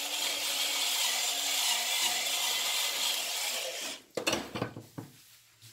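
Stainless steel pepper mill grinding peppercorns: a steady rasping grind for nearly four seconds that stops abruptly, followed by a few light knocks.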